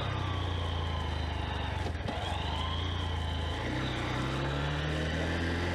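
Honda CB125F's single-cylinder four-stroke engine running under way, picked up by a microphone under the rider's jacket collar. The engine note dips about three and a half seconds in, then rises steadily.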